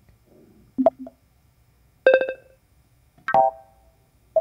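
Four short macOS Big Sur alert sounds played one after another, about a second apart. Each is a brief pitched tone or chime that dies away quickly; the first has a second, quieter note just after it.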